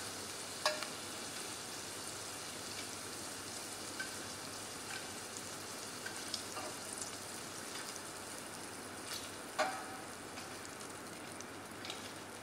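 Prawns sizzling in a stainless steel saucepan, a steady frying hiss as they finish pan-frying. Metal tongs clink sharply against the pan twice, about a second in and again near ten seconds.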